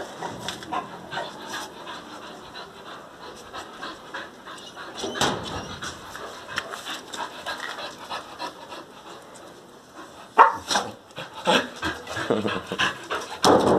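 Dogs panting in short, quick breaths, with a few louder bursts in the last few seconds.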